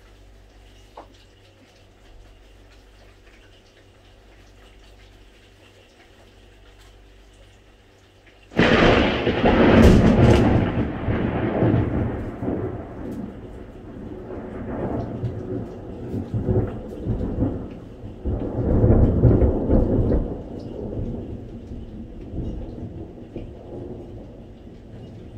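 Thunder during a rainstorm: a sudden sharp crack about eight seconds in, followed by long rolling rumbles that swell again several times and fade. Faint rain pattering underneath throughout.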